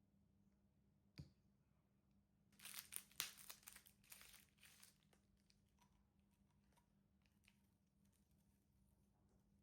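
A single sharp click about a second in, then about two seconds of crinkling and tearing, loudest in the middle, trailing off into faint scattered handling noises.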